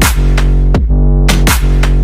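Loud background music with a deep sustained bass and sharp drum hits in a pattern that repeats about every second and a half.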